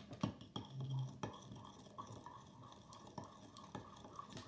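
Utensil stirring glitter into glue in a bowl to mix slime, with irregular light clicks and scrapes.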